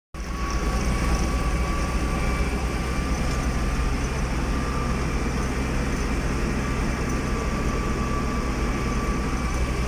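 Farm tractor engine running steadily under way, heard from inside the cab as a low drone with a thin steady whine above it.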